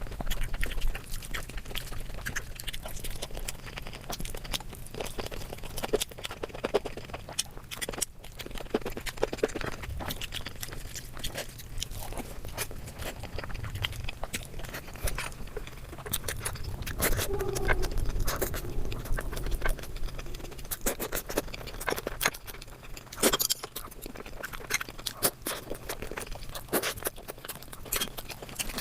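Close-up eating sounds: chewing and biting, with many short crunches and wet mouth clicks.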